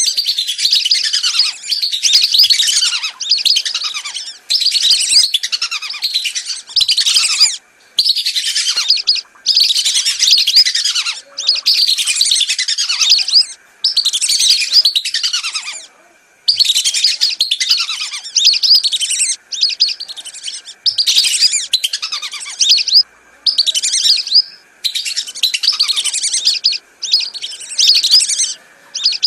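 Whistling ducks calling as a dense flock chorus of high whistles, in bursts about a second long with short breaks between them. It is a bird-lure recording mixed from three calling sounds.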